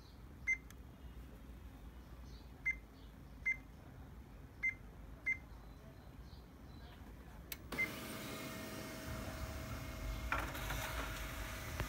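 Control-panel key beeps of an HP LaserJet Pro MFP M127 laser printer: five short high beeps as its buttons are pressed. About eight seconds in, the printer starts running with a steady hum as it begins printing a demo page, with a click a couple of seconds later.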